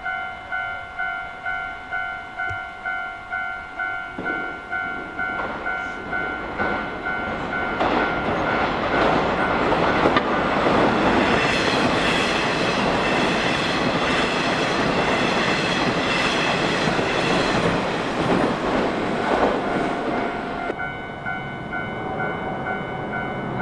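A level-crossing warning bell rings with an even pulsing ding, about one and a half strikes a second. From about four seconds in, a Nishitetsu electric train comes up and runs loudly through the crossing, its wheels clattering over the rails, and covers the bell until about twenty seconds in. The bell's ringing is heard again near the end.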